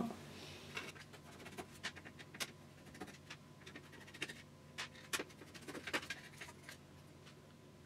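Scattered faint clicks and taps as a router's bare circuit board is handled by hand.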